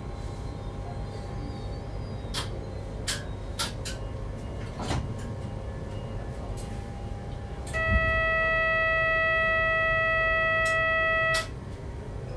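Bombardier Z50000 electric multiple unit running at about 70 km/h, heard from the driver's cab: a steady low rumble with a few sharp clicks. About eight seconds in, a loud steady single-pitched tone sounds for about three and a half seconds and then cuts off.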